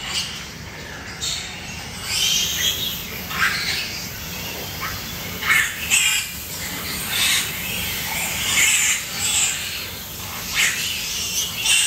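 Suckling piglets squealing in short high-pitched calls, many in irregular succession, over a steady low hum.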